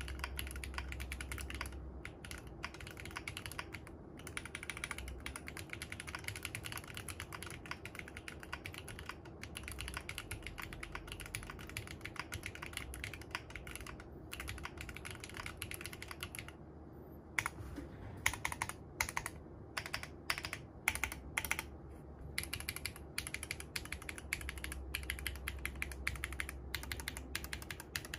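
Typing on mechanical keyboards with aluminium cases, Cherry-profile keycaps and tactile switches: a fast, steady run of keystrokes, then after a short pause about two-thirds in, slower, separate and sharper key presses.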